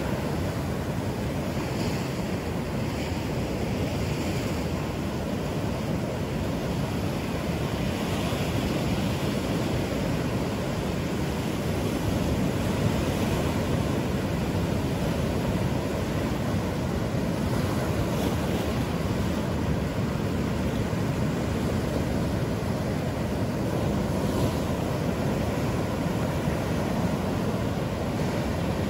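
Steady wash of ocean surf breaking on a sand beach, with wind buffeting the microphone.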